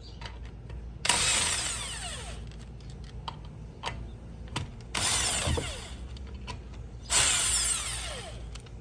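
A power tool with a socket on the lug nuts of a Honda CR-V's front wheel, run in three short bursts of about a second each as the nuts are spun off, each burst falling in pitch as it winds down, with light clicks of handling between.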